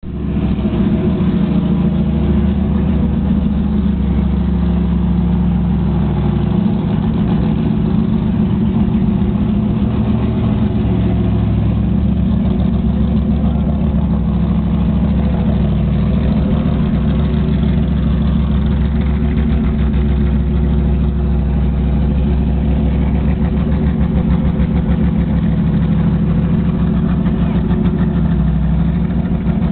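Corvette C6.R race car's cammed 7.0-litre LS7 V8 idling steadily and loudly through its race exhaust.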